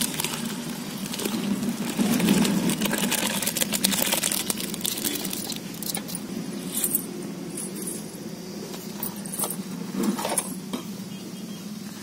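Curdled milk and whey poured from a steel pan into a cloth strainer over a steel basin, splashing and trickling for about six seconds. Then quieter dripping, with a few short clinks about seven and ten seconds in.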